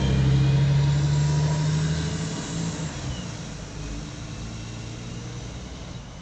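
Alexander Dennis Enviro 400 double-decker bus pulling away and driving off. Its engine hum is loudest in the first two seconds, then fades steadily as the bus draws away.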